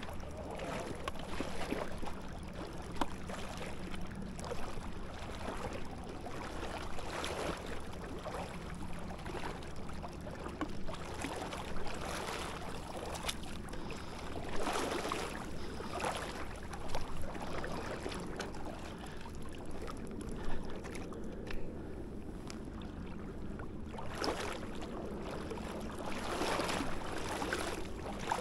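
Someone wading quickly through a river, the water swishing and splashing against the legs in uneven surges with each stride. A steady low hum runs underneath.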